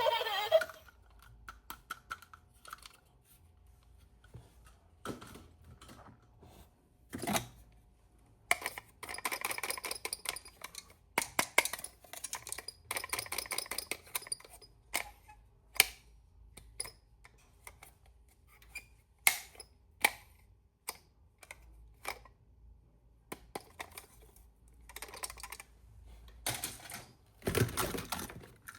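Small plastic toy parts being handled and snapped together: irregular light clicks and taps, with a few short stretches of rustling.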